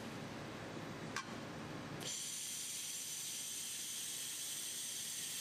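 Laser welding head welding a wire spring onto a steel sheet: a steady hiss of gas and weld starts about two seconds in, after a brief click about a second in.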